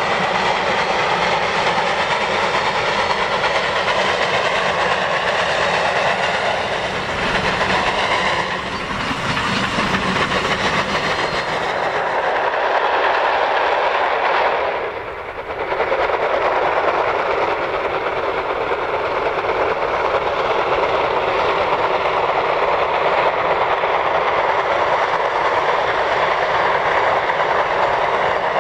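A South African Railways Class NGG16 narrow-gauge Garratt steam locomotive working hard with a loaded train. Its exhaust and running gear make a steady, continuous rush, with the wagons rolling behind. The sound dips briefly twice, about a third and about half of the way through.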